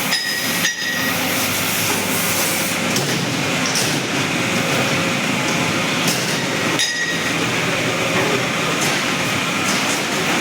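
A concrete mixer machine running with a steady mechanical rumble, along with a few light clinks.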